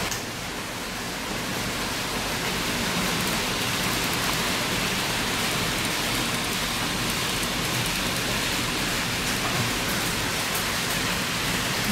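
Steady whirring hiss of model trains running on a layout: small motors and wheels rolling on the rails, with no distinct clicks.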